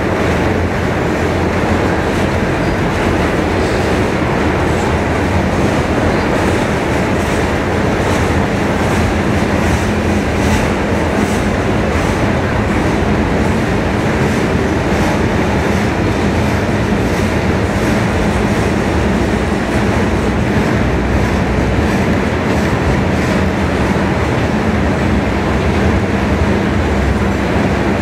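Freight train cars, covered hoppers and boxcars, rolling past in a steady rumble of steel wheels on rail, with faint repeated clicking.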